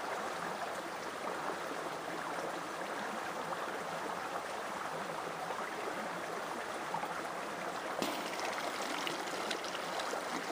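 Shallow stream flowing steadily over rocks. From about eight seconds in come light splashes and drips of water as a head is lifted out of the stream.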